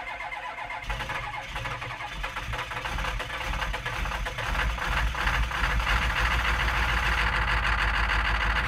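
A car engine running with a fast, even beat, growing louder over the first few seconds and then holding steady.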